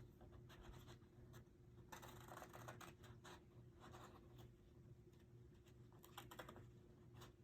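Faint snipping of scissors cutting photo paper by hand, with paper rustling: scattered short clicks and a couple of longer scratchy stretches about two and six seconds in.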